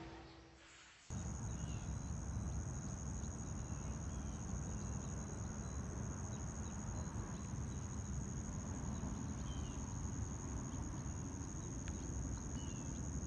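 Insects shrilling in one steady high-pitched tone, with a few short bird chirps over it and a low rumble underneath; it starts abruptly about a second in.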